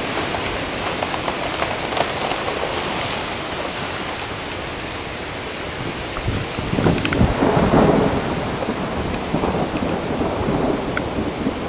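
Violent wind and driving heavy rain of a severe thunderstorm, which the news called a derecho, rushing steadily, with a louder gust about seven seconds in.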